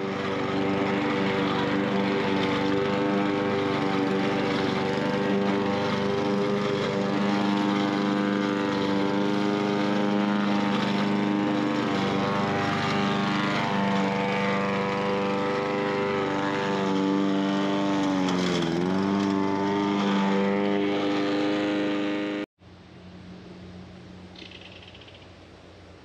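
Gas walk-behind lawn mower engine running steadily while mowing. About eighteen seconds in its pitch dips briefly as the engine slows, then comes back up. It cuts off abruptly near the end, leaving only a faint outdoor background.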